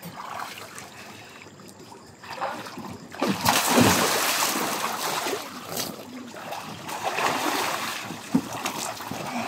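Water splashing in an above-ground frame pool as swimmers thrash about. It is fairly quiet at first, then a big splash comes about three and a half seconds in, followed by continued splashing and sloshing.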